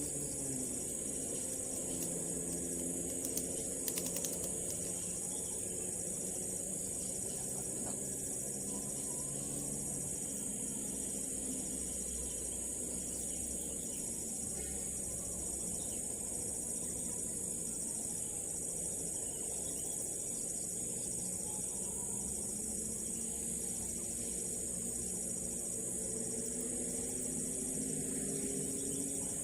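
Steady high-pitched insect chorus, crickets chirring without a break, with a few faint clicks about four seconds in.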